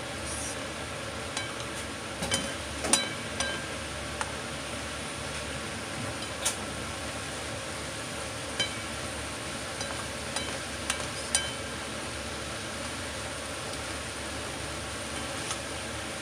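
A spatula stirring and scraping sautéed cucumber and ground beef in a frying pan, with scattered clicks and knocks against the pan, the loudest about three seconds in. Underneath runs the steady sizzle of the food frying.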